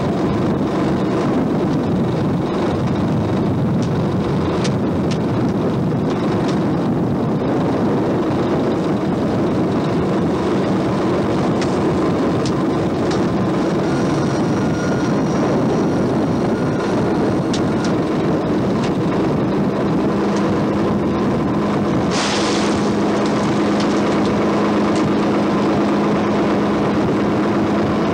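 The engine of a small oyster-dredging fishing boat running steadily as a continuous drone, heard from on deck. A short hiss comes about twenty-two seconds in.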